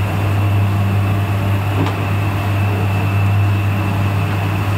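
Puffed-rice roaster machine running: a steady low motor hum under a constant rushing noise, unchanging throughout.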